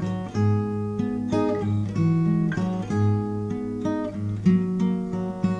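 Background music: an acoustic guitar playing chords, with notes plucked and strummed in a steady rhythm.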